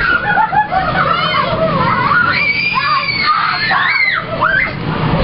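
Children screaming and shouting over one another while jumping in a bounce house, with several long, high shrieks about halfway through.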